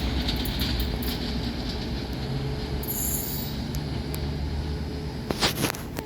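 Class 37 diesel test train pulling away, a steady low rumble of engine and wheels on the rails. A brief high wheel squeal comes about three seconds in, and a couple of sharp knocks follow near the end.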